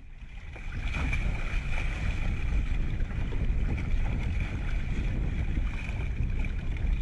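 Outdoor ambience over open water: steady wind rumble on the microphone with water noise, swelling up over the first second. A faint steady high whine runs beneath it.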